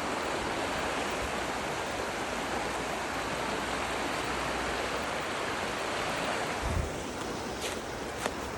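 Fast, deep floodwater in a swollen creek rushing steadily. A little before the end there is a low thump, after which the rush is somewhat quieter, with a few light clicks.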